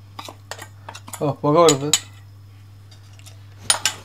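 A spoon tapping and scraping against a non-stick wok while ground spices are dry-roasted without oil: a few sharp clicks early on and a cluster near the end. A brief voice sounds about a second in.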